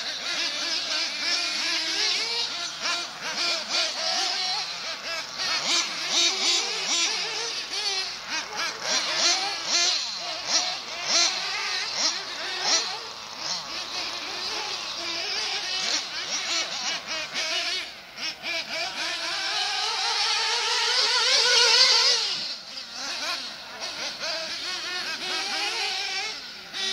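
Small nitro engines of 1/8-scale RC off-road buggies, a Kyosho MP9 Inferno and a Losi, whining around the track, their pitch rising and falling quickly as they accelerate and lift off. About twenty seconds in, one long rising whine becomes the loudest and then drops away suddenly.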